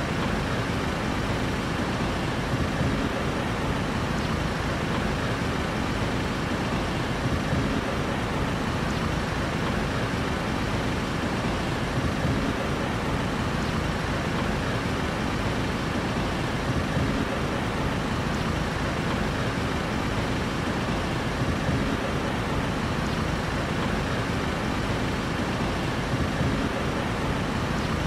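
Steady urban road traffic noise: an even rumble of passing and idling vehicles with no single vehicle standing out, swelling slightly about every five seconds.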